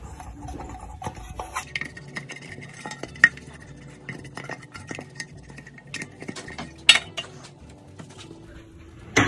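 Kitchenware clinks and knocks as a metal baking pan is handled and set down, with many light clicks and a few sharper knocks, the loudest about three, seven and nine seconds in.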